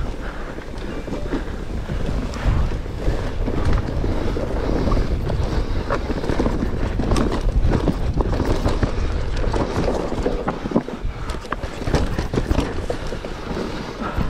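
Mountain bike ridden fast down loose, rocky singletrack: tyres rumbling and crunching over dirt and stone, with frequent sharp knocks and rattles from the bike, and wind rushing over the microphone.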